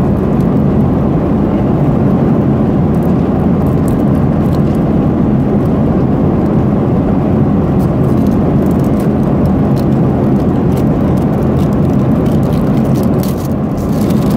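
Steady roar of an airliner cabin, engine and air noise, with faint crackles now and then from plastic packaging being handled.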